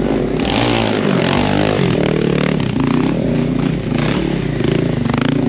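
Stunt motorcycle's engine revving hard while the bike is held up on one wheel in a wheelie. The pitch drops a little about a second in, then is held high with quick throttle blips.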